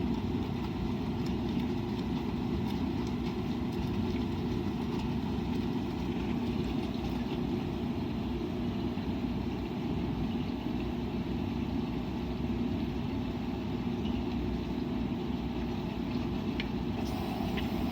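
Washing machine running with a steady hum and a few faint ticks.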